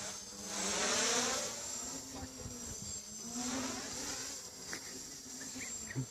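A 3D-printed tricopter's brushless motors (RC Timer 2830 1300 kV) and propellers buzzing steadily in flight. The buzz swells louder about a second in and again, more softly, around three and a half seconds, as the craft passes closer.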